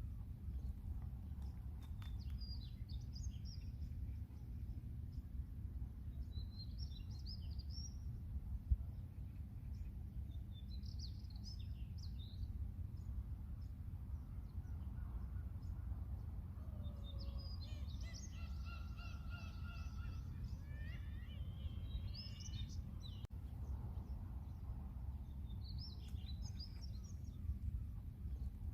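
Birds chirping and calling in short high bursts every few seconds, with one longer call holding clear steady tones about two-thirds of the way in, over a steady low rumble.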